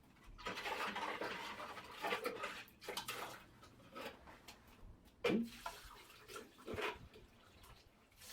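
Water pouring and splashing for a couple of seconds, then a few separate short splashes and drips, as the chicken cage is washed.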